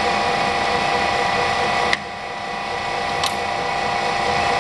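Warner & Swasey No. 3 turret lathe running under power feed, a steady mechanical hum with a whine. About two seconds in a sharp click comes and the running sound drops, then slowly builds back up. A smaller click follows about a second later.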